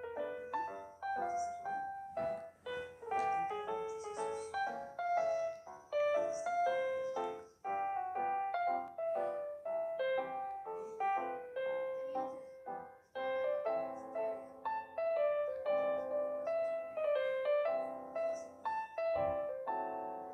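Background piano music: a steady stream of short, quick notes.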